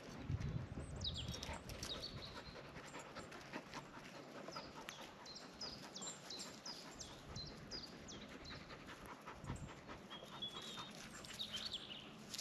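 Belgian Malinois dog panting.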